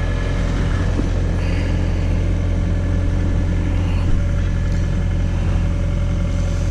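John Deere 317 skid steer's diesel engine running steadily, a constant low drone.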